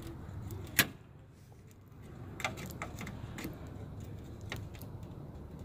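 Clicks and light taps of a screwdriver working at the plastic retaining tabs of a car's front grille: one sharp click about a second in, then scattered lighter ticks.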